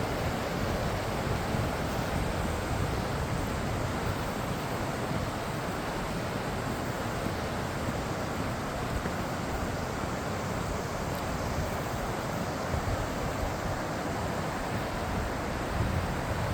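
Waterfall rushing steadily, with wind buffeting the microphone in uneven low rumbles.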